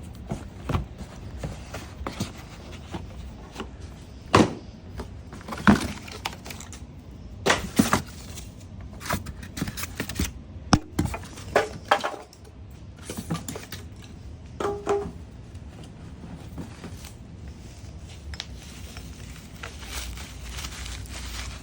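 Hands rummaging through a box of BMX parts: irregular knocks and metallic clinks as parts are handled.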